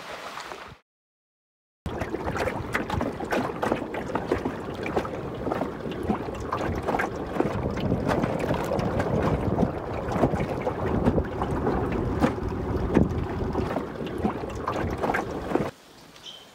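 Wind buffeting the microphone and water slapping against the hull of a small dinghy under way, with many sharp knocks. It starts suddenly after a brief gap and cuts off near the end.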